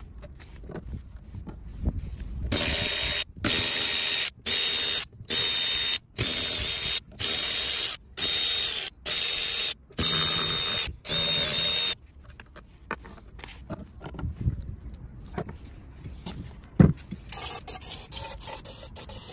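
Hissing spray in about ten short bursts, roughly one a second, each with a faint whistle, directed at the camshaft carrier of a Peugeot/Citroën 1.6 HDi diesel cylinder head. A single sharp knock comes about two-thirds of the way through, then more spraying near the end.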